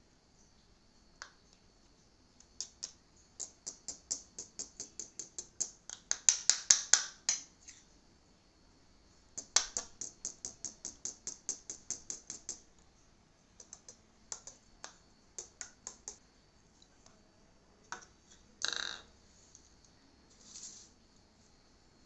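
Runs of quick light tapping, about four taps a second, on a funnel cut from a plastic bottle while flour is spooned through it into a balloon; later a few scattered clicks and one brief louder noise.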